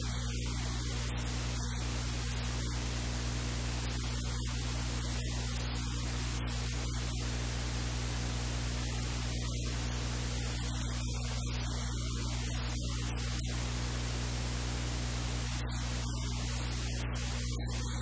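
Steady hiss with a constant low electrical hum and its overtones beneath it, unchanging throughout.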